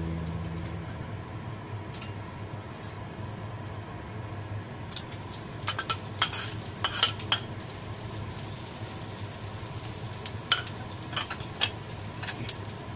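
Chopped shallots tipped from a small glass bowl into a carbon-steel wok: a cluster of clinks and taps about halfway through as the bowl knocks against the pan and the pieces fall in, with a few single taps near the end, over a low steady hum.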